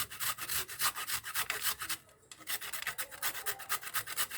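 Raw turnip being grated by hand on a grater: a quick run of rasping strokes, about six a second, with a brief pause about two seconds in.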